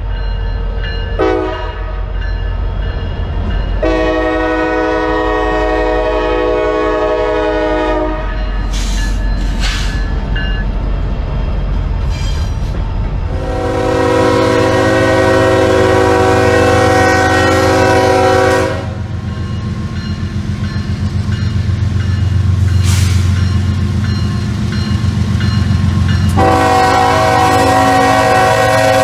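Diesel locomotive air horns blowing several blasts, one short and three long, each lasting several seconds, over the low, steady rumble of the locomotive engines.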